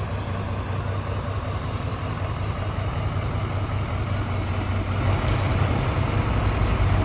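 Lifted Chevrolet pickup truck's engine idling steadily, a low even hum that grows slightly louder near the end.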